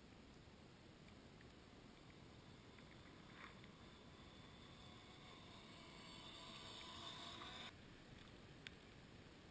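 Faint whine of a Tamiya CC01 RC crawler's electric motor and gears as the model drives toward the microphone. The whine grows louder from about a third of the way in and cuts off abruptly near the end, leaving only a faint hiss.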